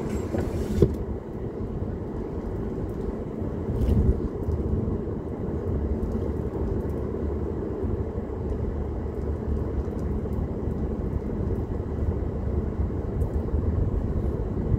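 A car being driven: a steady low rumble of engine and tyres on the road. There is a short knock about a second in and a louder bump about four seconds in.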